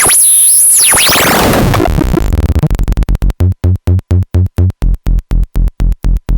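Electronic noise music from a Bastl KASTLE v1.5 and a Hikari Monos synthesizer clocked together. The first two seconds are a noisy, sweeping texture with a high whistling tone. It then breaks into fast, evenly gated low pulses, about five a second.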